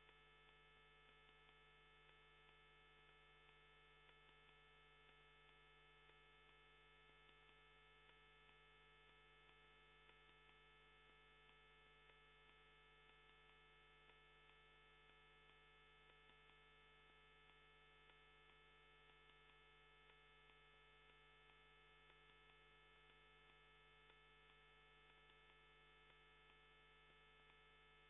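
Near silence: a faint, steady electrical hum of many unchanging tones, with no sound of the match.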